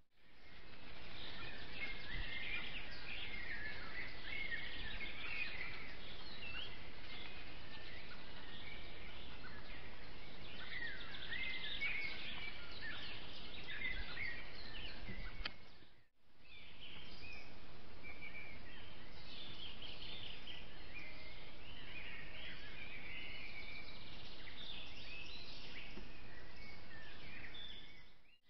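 Several songbirds singing and calling at once, many short chirps and warbles, over the steady hiss of a trail camera's microphone. The sound fades out and back in about halfway through.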